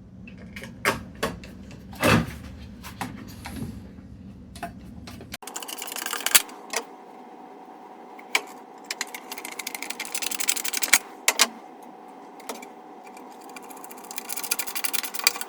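Clicks and knocks of parts being handled for about five seconds. Then, after an abrupt change in the sound, stretches of rapid mechanical ticking over a steady whine.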